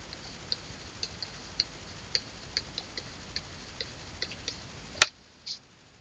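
Stylus tip tapping and clicking on a touchscreen during handwriting, irregular light clicks about three a second over a steady hiss. A sharper click about five seconds in, after which the hiss stops.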